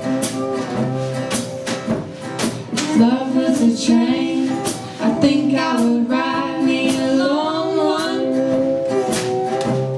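A live acoustic band playing a song: strummed acoustic guitars, an acoustic bass guitar and drums, with a lead vocal singing over them.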